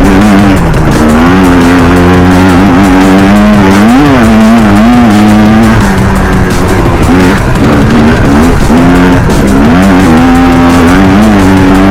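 Loud electronic background music with sustained, wobbling synth tones.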